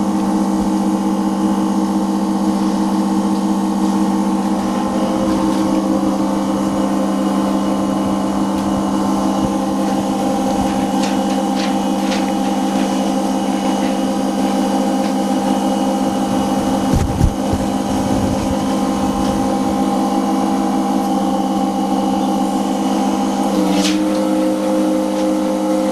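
Large OCA film laminating machine running with its built-in pump, a steady mechanical hum that steps up slightly in pitch near the end. A few light clicks and a single thump about 17 seconds in.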